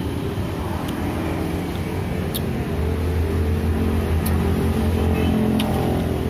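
Road traffic: a motor vehicle's engine running as it passes, its hum growing louder through the middle and easing near the end. A few light clicks of a metal spoon against the coconut shell.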